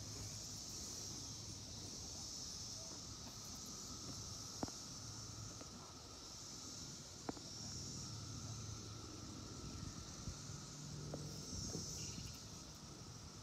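Chorus of periodical cicadas: a steady high whine that swells and fades in waves, with a fainter lower drone beneath it. Two small clicks stand out, one about four and a half seconds in and one about seven seconds in.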